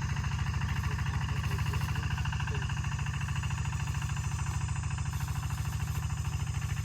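A small engine running steadily at an even speed, with a rapid regular pulse.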